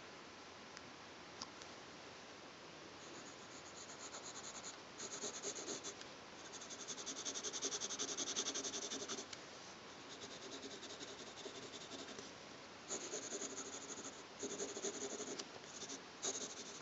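Graphite pencil hatching on paper: runs of quick back-and-forth scratchy strokes, starting about three seconds in, with short pauses between the runs.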